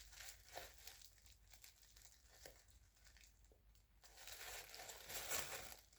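Faint crinkling of a paper toy packet being handled and felt. It stops for a near-silent stretch in the middle, then rustling returns for the last two seconds.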